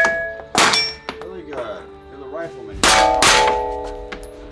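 Gunshots hitting steel targets, each strike followed by the plates ringing. There are two shots near the start and another quick pair about three seconds in.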